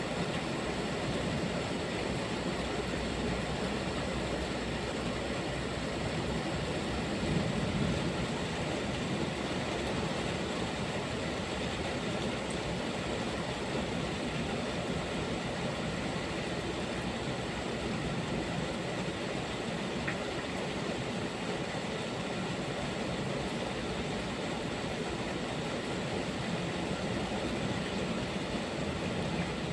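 Steady heavy rainfall with a low rumble of thunder underneath, swelling briefly about seven seconds in.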